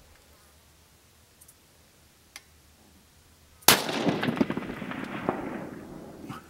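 A single rifle shot from a sniper rifle, a sharp crack about halfway through followed by a long rolling echo that fades away over about two and a half seconds. A faint click comes a little over a second before it.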